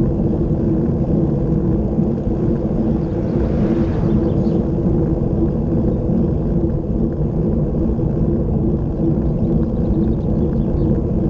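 Wind buffeting the microphone of a bicycle-mounted action camera on a fast road-bike descent, with tyre noise on the asphalt: a steady loud low rumble, with a brief brighter hiss about three and a half seconds in.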